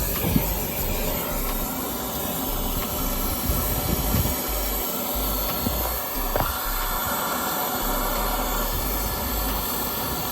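Oxy-acetylene brazing torch flame hissing steadily while it heats the brazed copper line joints on an AC compressor to unbraze them.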